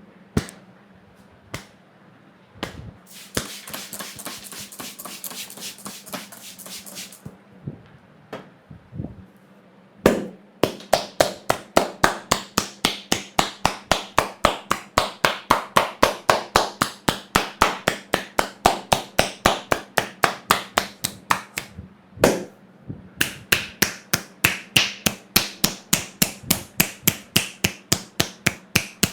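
Barber's hands striking a customer's head in fast, even percussive massage strokes, about four a second, with a brief pause and one heavier knock before the run resumes. A few seconds of brisk hair-rubbing come first.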